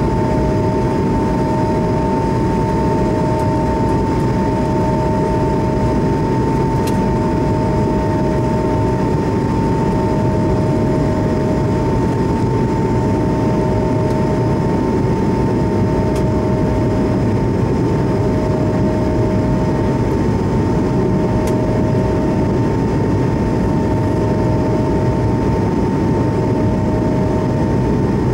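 Steady cabin noise of an Airbus A220-300 in flight, heard from a seat by the wing: a constant rush of engine and airflow from its Pratt & Whitney PW1500G geared turbofans, with a steady whine. A lower tone comes and goes every couple of seconds.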